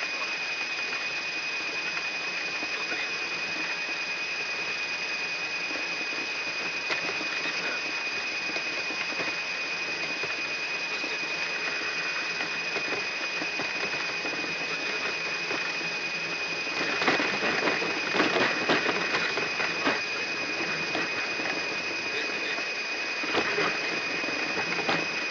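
Cockpit voice recorder audio from a Yak-42D's takeoff roll: a steady noise of engines and airflow in the flight deck with a constant high-pitched tone over it. A spell of rattling and clatter comes about 17 to 20 seconds in, and again near the end.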